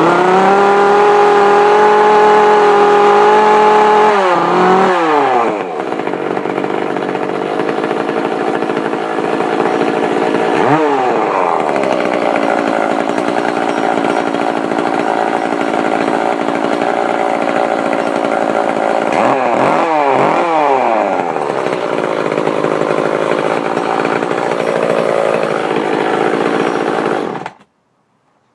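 Echo CS-341 two-stroke chainsaw held at high revs for a few seconds, then dropping back to idle. It is blipped once, then given a few quick revs later on, and is cut off suddenly near the end.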